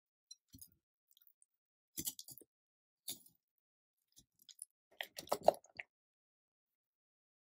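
Wire balloon whisk working cream cheese and granulated sugar in a glass bowl: soft sticky squelches and light clicks of the wires against the glass, in short irregular bursts that are busiest and loudest about five seconds in.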